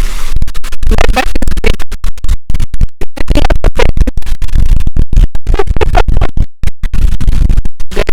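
Background electronic music with a heavy bass beat and a choppy, stuttering rhythm.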